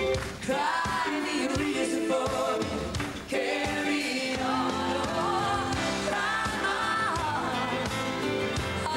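A live pop-rock band plays a ballad with electric guitar, keyboards and drums under lead vocals, with backing singers joining in.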